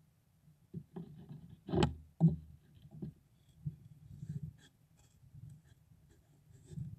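Long-tailed gorals nosing and rubbing against a wildlife camera: fur brushing and scraping over the housing, with two loud bumps about two seconds in, then lighter clicks and scratches.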